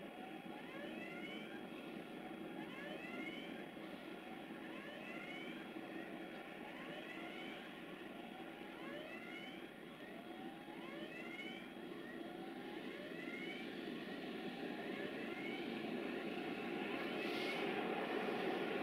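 Diesel-electric freight locomotive (CFR 060-DA / LDE2100, Sulzer engine) approaching from a distance, its engine a steady drone that grows gradually louder. Over it a short rising chirp repeats about once a second for most of the stretch.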